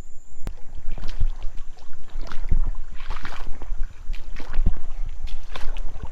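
Wading through shallow creek water: irregular sloshing and splashing with dull low thumps.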